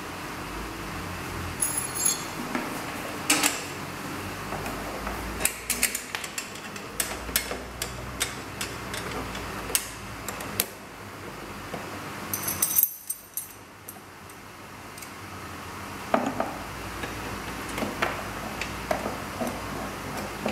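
Small metal fittings clinking and clicking as steel clips and bolts are handled and tightened with an Allen key to fix a metal grating onto a drainage channel. The sharp knocks come irregularly, with a cluster around the middle and a few more near the end.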